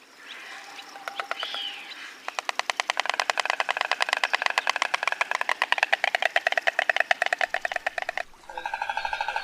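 White stork clattering its bill: a rapid, even rattle of many wooden clicks a second. It starts about two seconds in, after a few faint softer sounds, and stops shortly before the end.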